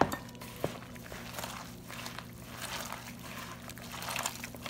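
A bare hand squishing and squelching through thick gram-flour batter with long potato strips and onion in a bowl, mixing pakora batter in irregular wet squishes.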